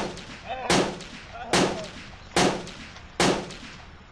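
A string of pistol shots, evenly spaced about one every 0.8 s, five in all, the last a little past three seconds in.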